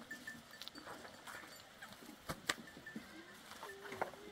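A long-handled tool scraping and knocking on dirt and straw: a few sharp knocks, the loudest about halfway and near the end. A goat bleats once, briefly, near the end.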